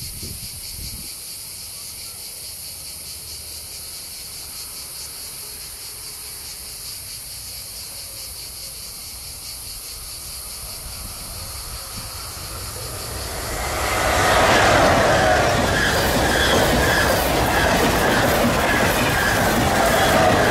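A steady, finely pulsing high buzz of cicadas. About thirteen seconds in, a double-deck TGV high-speed train, two sets coupled, swells in and runs past close by. Its wheels squeal on the curve over loud rolling noise.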